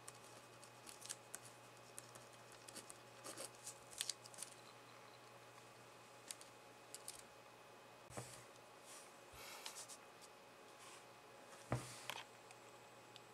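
Faint scratching of a black pen writing on paper in short strokes. Then a few soft knocks, the loudest about twelve seconds in, as pens are handled on the wooden desk.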